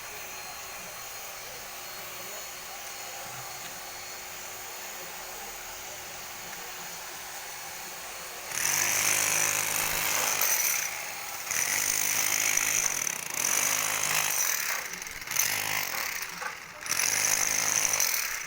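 A power tool starting up about halfway through and running in bursts of a second or two, with short breaks between them, over a steady low background noise.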